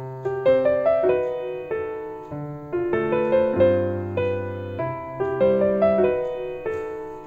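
Background piano music: single notes and chords struck and left to ring over low bass notes.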